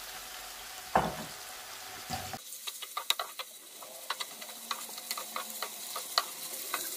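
Raw chicken strips sizzling in hot oil with spring onions and garlic in a non-stick frying pan. A wooden spoon stirs them, tapping and scraping against the pan in many quick clicks, with one louder thump about a second in.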